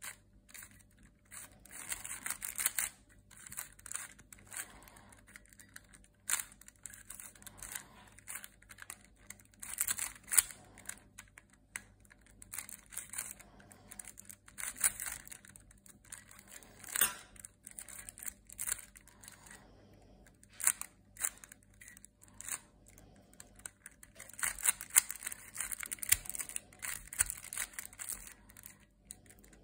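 Plastic ball-cluster twisty puzzle being turned in the hands: its plastic balls click, rattle and scrape against one another in irregular bursts, with a few sharper single clicks.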